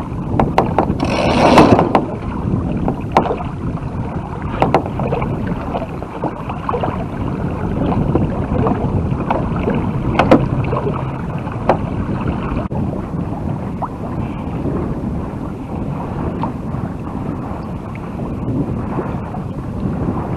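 Yamaha 24 Festa sailboat under way in strong wind: a steady rush of water along the hull and wind on the microphone, with scattered short knocks and a louder rush about a second in.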